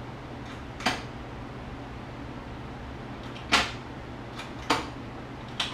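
Four sharp clicks and clacks, one about a second in and three more in the second half, as a quickshifter sensor and its shift rod are pulled and handled with multimeter leads held to its wires, over a steady low hum.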